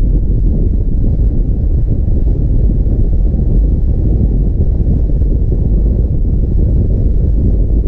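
C4 Corvette's V8 running steadily, a low, unchanging rumble heavily mixed with wind buffeting the microphone.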